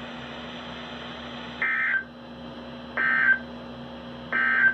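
Three short bursts of Emergency Alert System end-of-message (EOM) data code, each a raspy two-tone digital warble lasting about a third of a second, spaced about a second and a half apart, over a faint steady hum. They signal that the alert message has ended.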